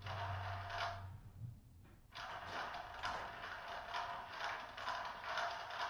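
Plastic ball rattling and rolling around a cat's circular track toy. It goes for about a second, pauses, then rolls on for the rest.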